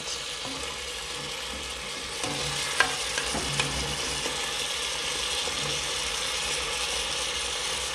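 Chicken and diced vegetables sizzling as they sauté in a pot, stirred with a silicone spoon, with a few light knocks of the spoon against the pot about three seconds in.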